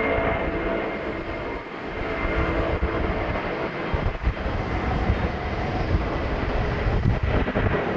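Jet engines of a Boeing 767 running at high power as the airliner rolls down the runway. A steady heavy rumble with a thin high whine over it.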